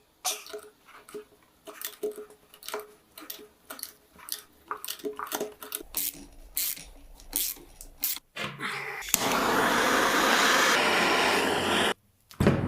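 Workshop handling sounds: a run of light clicks, taps and knocks of tools and small hard parts, some ringing briefly. Near the end comes about three seconds of steady hissing noise that cuts off suddenly.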